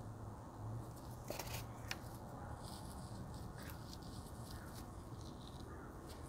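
Faint scraping and rustling of potting soil being loosened with a stick and gloved hands, with a few light clicks between one and two seconds in, over a steady low hum.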